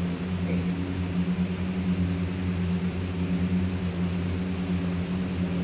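Steady low electrical hum of running equipment: a deep, unchanging drone with a higher overtone above it.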